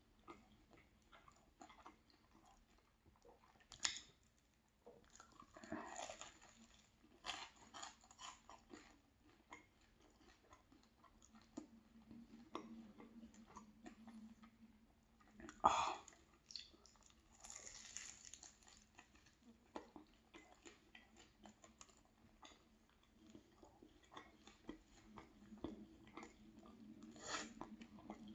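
Close-miked chewing of a dense, buttery pastry: soft moist mouth sounds and small crackles, with a few louder crunchy bites about 4, 6, 16 and 27 seconds in.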